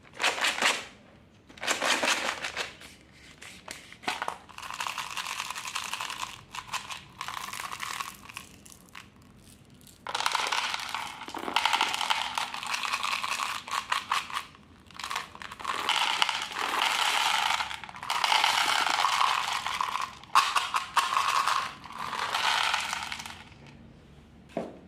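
Crunchy slime with candy mixed in, being squished and stirred: crackling crunches in bursts of one to three seconds with short pauses between.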